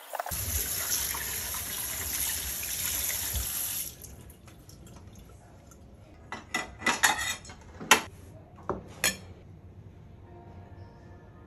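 Kitchen tap running full onto chicken pieces in a colander in a stainless steel sink for about four seconds, then shut off. A few seconds later come several sharp knocks and clinks, the loudest about eight seconds in.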